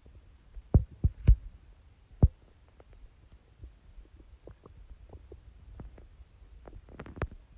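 Watery stomach growls: irregular gurgles and pops, a few loud ones in the first two and a half seconds, then many small bubbling clicks, and a cluster of louder pops near the end.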